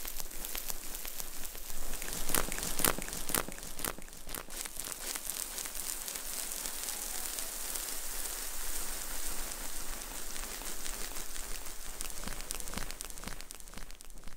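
Dense crackling, crinkly rustle close to the microphone, with several sharper clicks about two to four seconds in.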